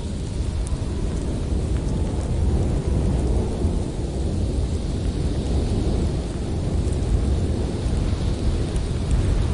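Blizzard wind blowing hard through a forest: a deep, steady rumble that swells a little now and then, with a few faint scattered ticks.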